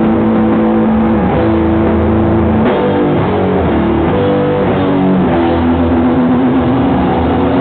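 Live rock band playing loud, distorted electric guitar and bass with drums. The guitars hold long notes that shift in pitch every second or so, with no break.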